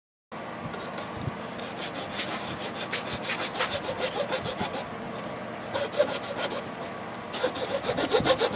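Hand tool rasping in quick back-and-forth strokes, a few a second, with the strokes getting louder near the end.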